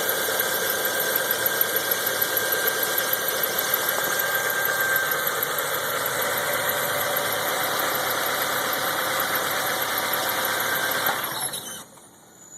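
Mazda 626 engine running with a high, steady whirring tone from the engine bay and a fast, even ticking, a whir whose source is not yet known. It shuts off abruptly near the end.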